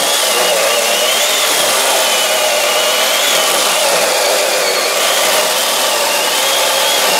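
Cordless battery-powered mini chainsaw, fitted with a non-original replacement motor, running steadily under load as its freshly hand-sharpened chain cuts through a branch of frozen green walnut. The motor's whine wavers slightly in pitch over the steady rasp of the chain in the wood.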